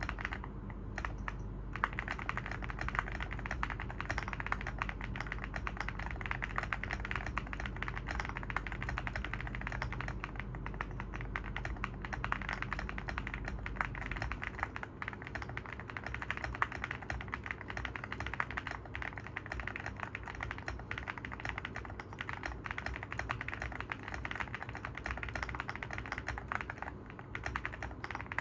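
Continuous fast typing on an Evoworks EVO80 mechanical keyboard with Oat linear switches on a polypropylene plate: a dense run of keystroke clacks, with a brief pause about a second in.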